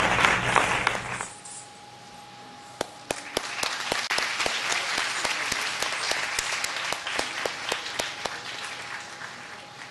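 Audience applauding. A loud round breaks off abruptly about a second in, then a lighter round of separate claps picks up a couple of seconds later and fades near the end.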